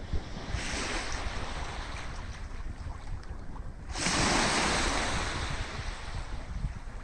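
Sea waves washing onto a beach, with a bigger wave breaking about four seconds in and hissing away over the next two seconds. Wind rumbles on the microphone underneath.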